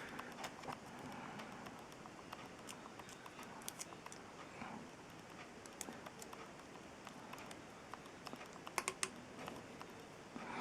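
Small plastic model-kit parts being handled and pressed together: light, irregular clicks and taps, with a brief cluster of sharper clicks near the end.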